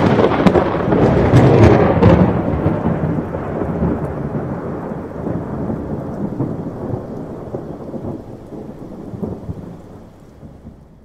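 Thunder from a lightning strike: a loud clap with sharp crackles in the first two seconds, then a deep rolling rumble that slowly fades away over about eight seconds.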